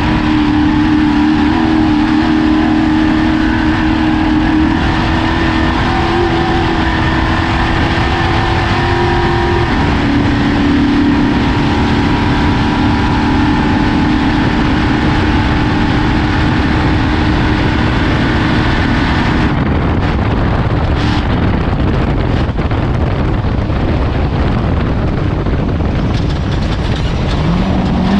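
Off-road race vehicle's engine running hard at a steady pitch, stepping slightly lower about ten seconds in. About two-thirds of the way through the engine note drops away, leaving a loud rushing rumble, and a wavering engine note rises again near the end.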